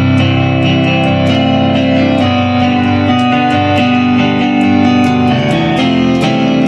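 Instrumental music from a plucked string instrument: notes picked one after another over ringing chords, changing every second or so.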